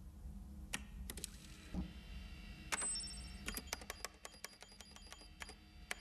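Computer keyboard keys clicking as someone types: a few separate keystrokes at first, then a quick run of about five clicks a second in the second half. A short high electronic beep sounds about three seconds in, over a low steady hum.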